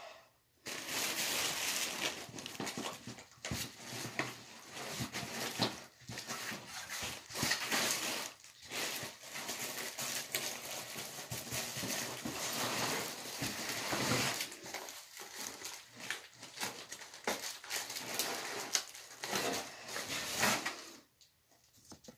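Packaging being handled while unboxing a body vibration platform: plastic wrap and cardboard rustling and crinkling continuously, with small knocks. The sound stops shortly before the end.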